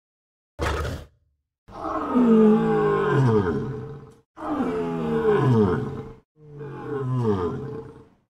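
A large animal calling: one short call, then three long roaring calls in a row, each falling in pitch.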